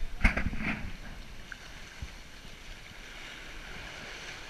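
Water rushing and hissing along the hull of a heeled sailing yacht under way, with wind rumbling on the microphone. A wave slaps sharply against the hull about a quarter second in.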